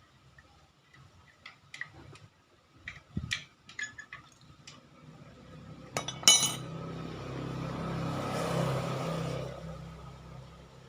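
Metal tools and parts clinking and tapping, then a sharp metallic clank about six seconds in, followed by a few seconds of rushing noise that swells and fades.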